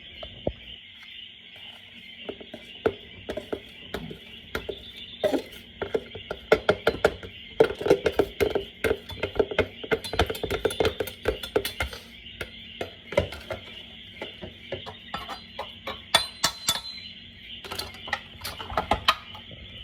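Irregular clinks and taps of a utensil against a mixing bowl as the second half of the flour goes into the guava cookie batter. They come thickest in the middle, thin out, and then pick up again near the end.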